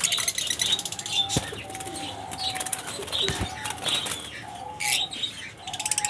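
Lovebirds chattering and chirping in fast runs of high clicks, with a flutter of wings and a couple of soft knocks.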